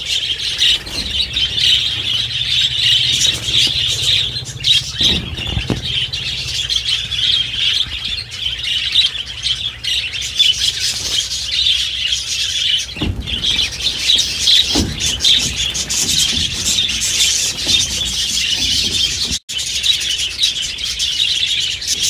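A flock of budgerigars chattering and chirping without a break. A few dull knocks come from the wire carrier cage being handled as the birds are let out.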